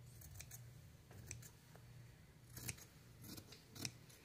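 Fabric scissors snipping through layered cotton fabric as an edge is trimmed: several faint, separate cuts spread out, the loudest near the end.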